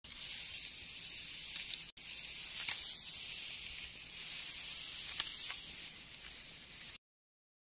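Thin wooden stick scraping and digging in sand: a steady hiss with a few sharp ticks, breaking off for an instant about two seconds in and stopping abruptly near the end.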